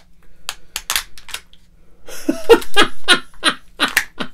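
A few sharp crackles as the wrapper of a Kinder Joy egg is peeled off, then a man laughing from about two seconds in.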